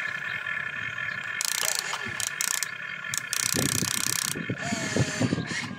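Radio-controlled model excavator's electric motors and gears whining steadily as it digs and swings, with several short bursts of hiss.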